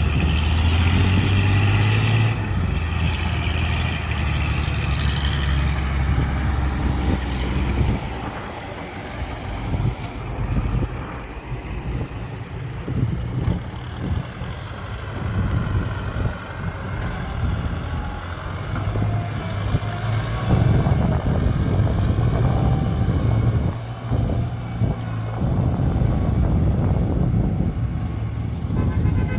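Diesel engines of a tractor and a truck working in mud: a steady low drone for the first several seconds, then a rougher, varying sound that rises again later on.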